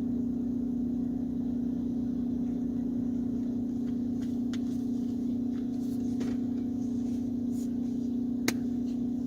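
A steady low hum on one pitch, with a few light clicks, the sharpest near the end.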